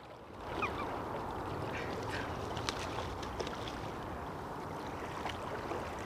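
Steady rush of river water with a few short, faint calls and splashes from a seagull hooked on a fishing line.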